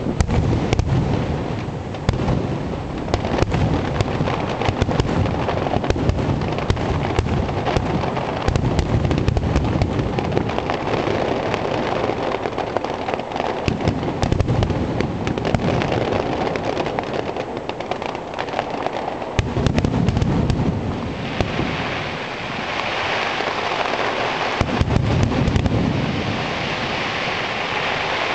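Fireworks display: repeated clusters of low booming shell bursts over a dense, continuous crackling, with the crackle swelling into a hissing shower in the later part.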